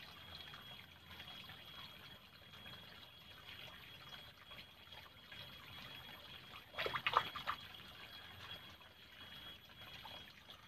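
Faint steady trickle of water in a small ditch, with a short cluster of brief rustles or knocks about seven seconds in.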